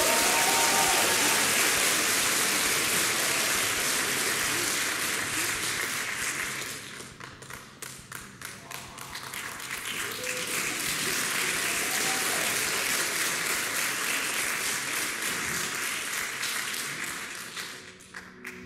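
Concert audience applauding. The applause dies down about seven seconds in, swells again and fades away near the end.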